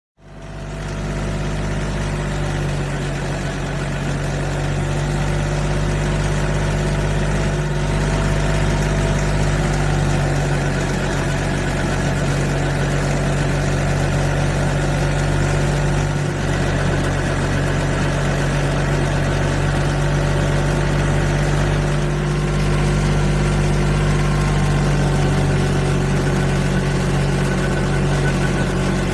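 Car engine running steadily with a constant low hum, starting abruptly and holding an even pitch with no revving.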